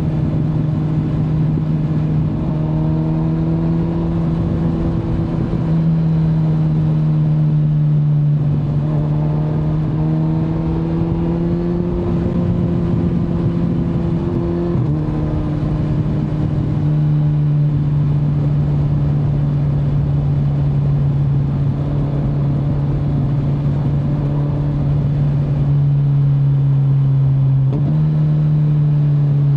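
Kawasaki Z900 inline-four engine running under way, its pitch holding fairly steady with gentle rises and several sudden small steps up and down, over a steady rush of wind noise.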